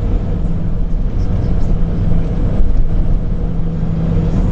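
Cabin noise inside an Airbus A340 taxiing: a steady low rumble with a continuous low engine hum.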